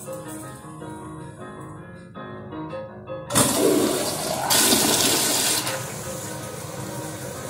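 Vortens Tornado pressure-assist toilet tank flushing a Vitromex bowl: a sudden loud whoosh of water starts about three seconds in and lasts a little over two seconds, then settles into a quieter, steady rush of water.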